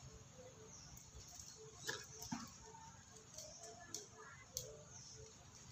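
Near silence: faint background ambience with a few soft, scattered clicks or taps, around two seconds in and again around four seconds in.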